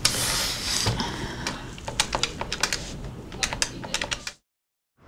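Typing on a computer keyboard: irregular key clicks, after a brief noisy rustle at the start. The sound cuts off abruptly to silence shortly before the end.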